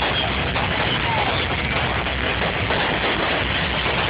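Fireworks going off in a dense, unbroken barrage: many overlapping bursts and crackles over a steady low rumble.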